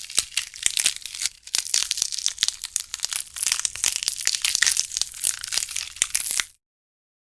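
Crumpling, crushing noise: a dense, irregular run of crisp crackles and crunches that cuts off abruptly about six and a half seconds in.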